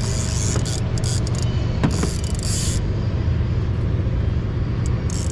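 Boat motor running at a steady speed, a constant low drone, with short bursts of hiss over it.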